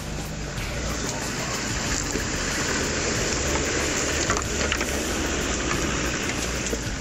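Land Rover Discovery II off-roader crawling past over a rocky track: engine running under the crunch and clatter of tyres on loose stones, growing louder in the middle as it passes close.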